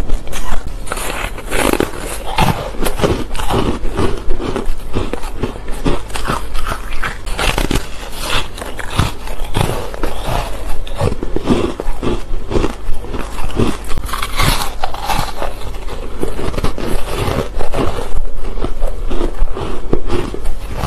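Solid ice being bitten and chewed: a continuous run of loud, irregular crunches and cracks.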